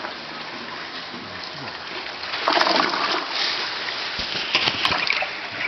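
Water splashing in loud, irregular bursts from about two and a half seconds in, over a steady rush of water.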